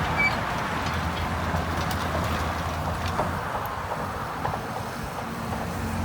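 Heavy earthmoving machine's diesel engine running steadily, with a few faint clicks and knocks over it.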